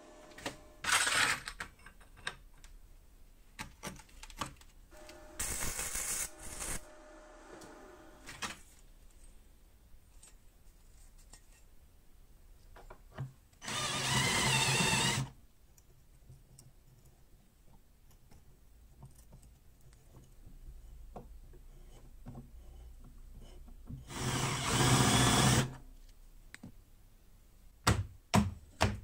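Cordless drill with a countersink bit cutting into a steel plate, in two bursts of about a second and a half each. Before them, steel parts clatter briefly as they are handled on a metal bench. Near the end, rubbing strokes begin as the plate is sanded by hand on a strip of sandpaper.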